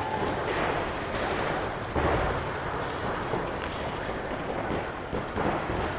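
Paintball markers firing in rapid strings, a dense, continuous crackle of shots that gets a little louder about two seconds in.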